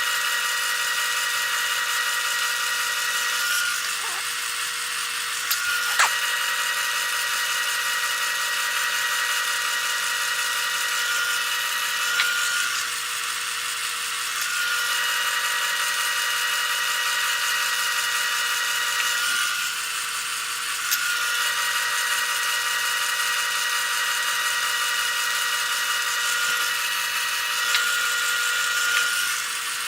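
Small wood lathe running with a steady motor whine over a hiss, easing off briefly a few times.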